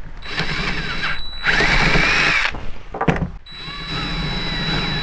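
DeWalt 20V cordless drill boring out the hole of a battery cable ring terminal to enlarge it. It runs in a few short bursts, then steadily for the last second and a half, the bit squealing unevenly against the metal.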